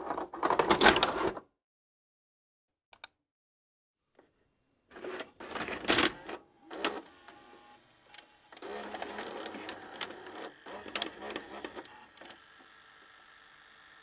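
VHS video recorder's tape mechanism: a loud clattering burst, a sharp click about three seconds in, then a run of clunks and whirring with clicks. Near the end it settles into a steady faint hum as the deck runs.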